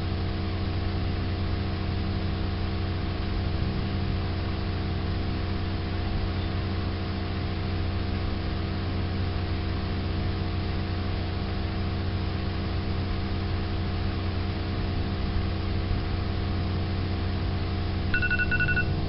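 Steady hum with several held tones throughout. Near the end, a quick run of short, high electronic beeps: a timer going off to signal that the one minute allowed is up.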